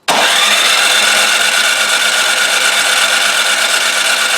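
Snowblower engine being cranked by its electric starter with the spark plug out and a compression gauge fitted, for a compression test that reads close to 70 psi. A loud, steady whine that starts abruptly.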